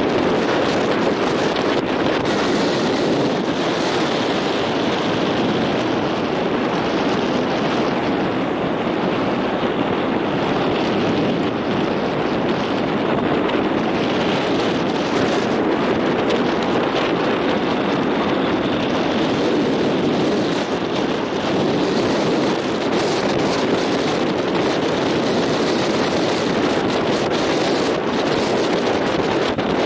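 Steady wind buffeting the microphone, with the wash of choppy water beneath it.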